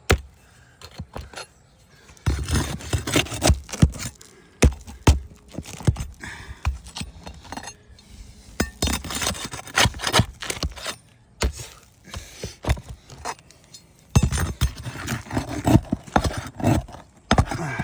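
Scraping and irregular sharp knocks and clinks of a tool working under old asphalt 3-tab shingles to free one shingle, more than 20 years old. The sounds come in uneven clusters, with short quieter pauses near the start and about two-thirds of the way through.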